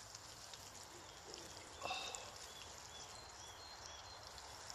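Egg omelette frying in a pan on a fire pit grill, a faint steady sizzle, with a brief louder noise about two seconds in.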